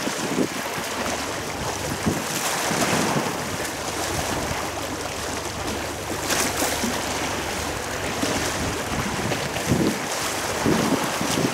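Steady wind noise on the microphone over rushing water.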